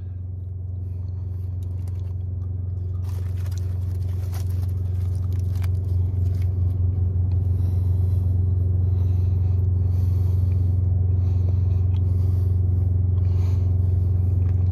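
Steady low hum of the idling semi truck, growing louder over the first half, with the rustle and crackle of foil and chewing as a barbecue sandwich is eaten.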